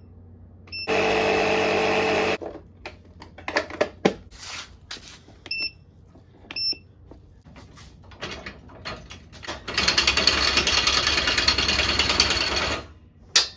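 A power tool runs in two bursts: the first about a second and a half long with a steady motor pitch, the second about three seconds long and noisier. Clicks and a few short, high beeps come in between.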